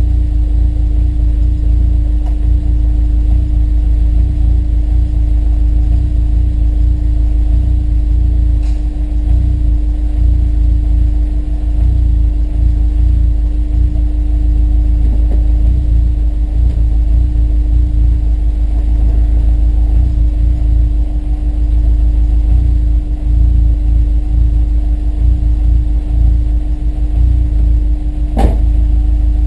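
Honda S2000's four-cylinder engine idling steadily while warming up on new spark plugs, with one sharp pop near the end: the intermittent misfire that the new plugs have not cured.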